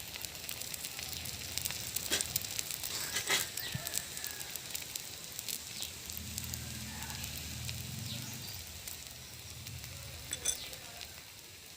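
Thuthuvalai adai frying in sesame oil on a hot pan: a steady sizzle with scattered crackles and pops. A low hum joins about halfway through.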